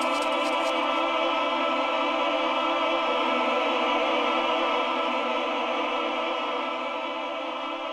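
Electronic music made in Propellerhead Reason: a sustained synthesizer chord held steady after a fast hi-hat pattern stops just under a second in, getting slowly quieter toward the end.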